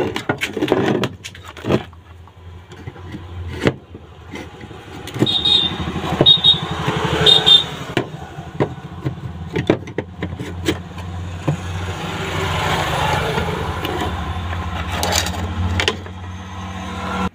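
Clicks and scrapes of plastic torch housing parts being handled and fitted together. From about five seconds in a steady engine-like motor hum rises and holds underneath.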